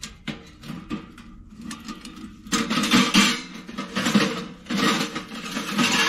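Light metal clicks and knocks as the door of a Tomount tent stove is opened, then, from about two and a half seconds in, louder metal scraping and clinking as nested stovepipe sections are slid out of the stove body.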